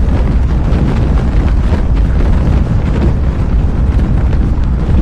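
Loud, steady low rumbling noise with wind buffeting the microphone.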